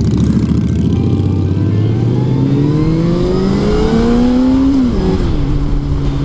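Kawasaki ZZR600's inline-four engine accelerating, its pitch rising steadily for a few seconds, then dropping sharply about five seconds in as it shifts up a gear, and holding steady after.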